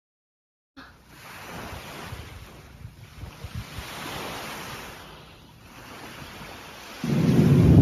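Wind and surf rushing on the microphone, swelling and fading. About seven seconds in, a much louder low rumble starts abruptly.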